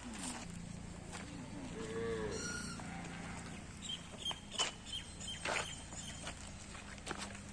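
A sheep bleats once, a low, arching call about two seconds in. A small bird chirps several times in the middle, over a steady low hum, with scattered clicks.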